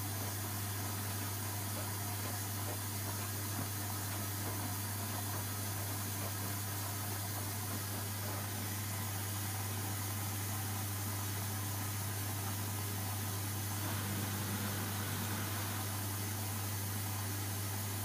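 Hoover Dynamic washing machine in its wash phase, the drum turning a wet load of clothes in water. A steady low hum over even noise, with no clear thuds.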